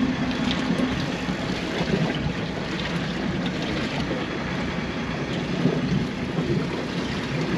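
A fishing boat's engine running steadily, with wind buffeting the microphone.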